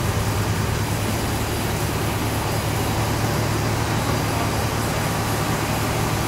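Steady machine hum: a constant low drone under an even mechanical noise.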